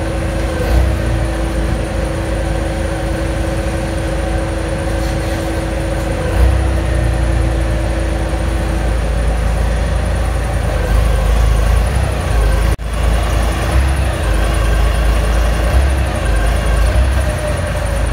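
The engine of a Kaystar Landtiger35 articulated four-wheel-drive rough-terrain forklift running as the machine is driven, a heavy low rumble that swells at times, with a steady whine over it that stops about nine seconds in. The sound breaks off for an instant about thirteen seconds in.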